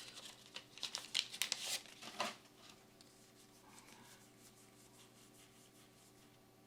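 Foil booster pack wrapper crinkling and tearing open for about two seconds, then faint rustling of trading cards being handled.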